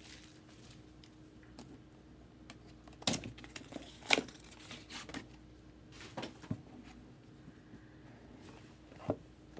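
Faint crinkling and rustling of trading card packaging being handled and torn open, with a few sharper crinkles about three and four seconds in.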